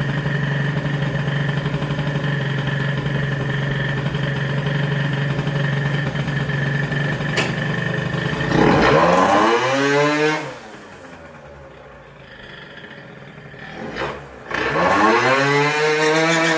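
Piaggio NRG MC2 scooter's 70cc two-stroke engine with a LeoVince ZX exhaust, running on test. It idles steadily, is revved about nine seconds in, goes quieter for a few seconds, then revs up again near the end and holds a higher speed.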